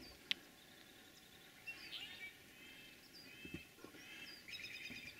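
Faint songbird chorus at dawn: many short chirps and whistled notes, with a rapid trill of repeated notes near the end. A single sharp click sounds about a third of a second in.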